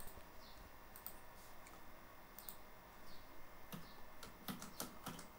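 Faint computer keyboard keystrokes: a few scattered clicks, coming closer together from nearly four seconds in.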